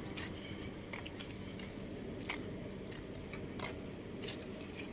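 Footsteps on gritty asphalt: a few soft, irregular crunches over a low steady hum.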